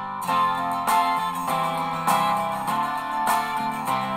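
Background music: strummed guitar.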